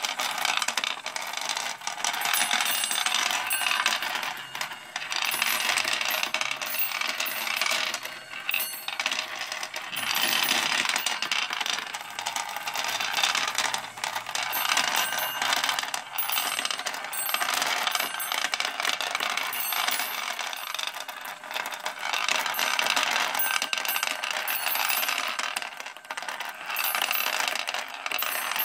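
Steel balls rolling along the grooves of a homemade plexiglass ball carousel and clicking against the plastic and each other: a continuous metallic rattling clatter that swells and eases every few seconds.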